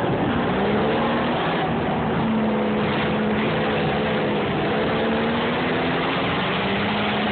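A 4x4's engine running at a fairly steady pitch under light throttle while it drives on a dirt trail, heard from inside the open-topped cab. Rushing wind and tyre and road noise run underneath.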